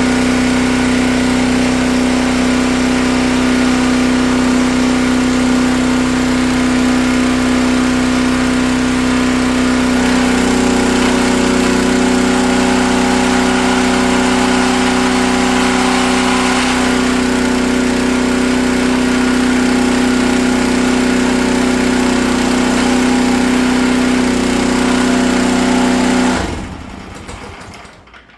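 Gas engine of a 4400 PSI Dewalt pressure washer running steadily under load, its note shifting slightly about ten seconds in, with the pump building full pressure again after the unloader collar adjustment. Near the end the engine is shut off and winds down.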